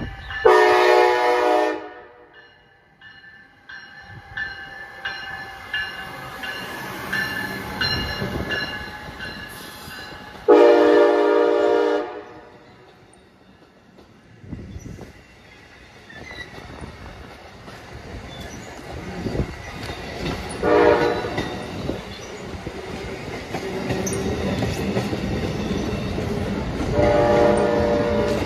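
Amtrak ACS-64 electric locomotive sounding its horn four times, several seconds apart: a long blast, another long one, a short one and a final long one. Under the horn, the passing train's stainless-steel coaches roll by with a steady rumble and wheel clatter that grows louder near the end.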